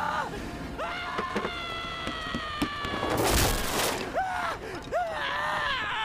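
A man screaming in pain: a series of high cries that jump up and then sag in pitch, one long drawn-out wail, and a harsh rasping burst about three seconds in.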